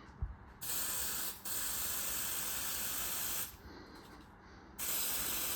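Aerosol can of smoke-detector test spray hissing in two sprays: the first about three seconds long with a brief break partway through, the second starting near the end. A short tap comes just before the first spray.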